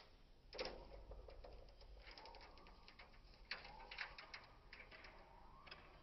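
A parrot's claws and beak clicking and tapping on a metal-mesh cage as it climbs across it. The clicks are faint, come in irregular clusters and are sharpest about half a second in and near the middle.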